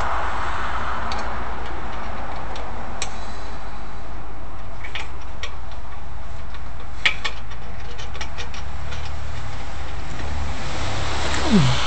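Light metal clicks and clinks as an exhaust pipe is worked by hand onto a long-tube header's collector flange, scattered through and bunched about seven seconds in, with a louder knock near the end, over a steady low hum.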